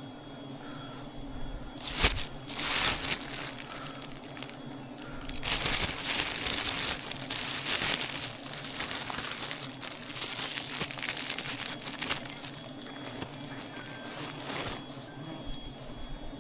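Rustling, crinkling noise with a sharp knock about two seconds in, growing dense and continuous from about five to twelve seconds, over a steady low hum.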